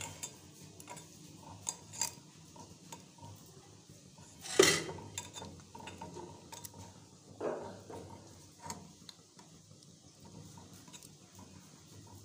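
A hand stirring thin gram-flour (besan) batter in a steel pot, working out the lumps, with soft sloshing and small clinks against the metal. A louder clunk of the pot comes about four and a half seconds in, and a weaker one near seven and a half seconds.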